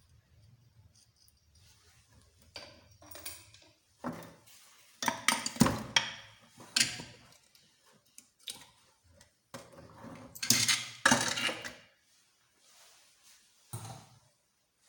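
Metal engine parts and tools clinking and clattering as they are handled and set down, in several irregular bursts of knocks with short pauses between.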